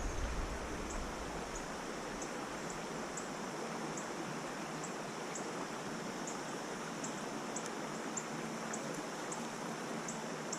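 Steady rush of flowing river water, with faint high ticks about twice a second.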